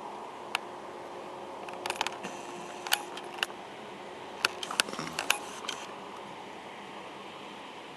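A scattering of sharp mechanical clicks and light rattles, bunched around two and five seconds in, over a steady background hum.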